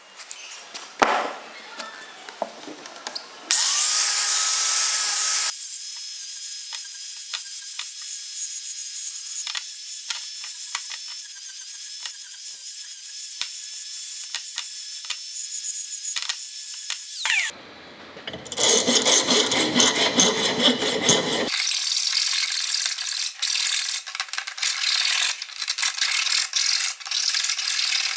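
Metalworking on a steel square tube. A short loud burst of an abrasive cut-off saw is followed by a long stretch of an angle grinder with a flap disc grinding the cut end, a steady high whine with some louder, fuller grinding near the middle. In the last seconds a hand file rasps the tube's inside edge in quick, repeated strokes to deburr it.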